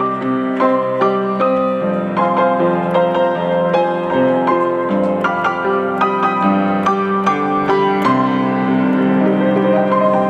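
Background piano music: a gentle, steady run of notes with a sustained chord bed.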